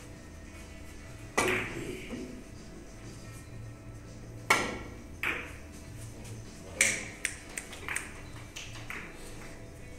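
Carom billiard shot: the cue tip strikes the cue ball about four and a half seconds in, followed by sharp clicks of ivory-hard balls hitting each other, the last few lighter and quicker. A single similar sharp click comes about a second and a half in.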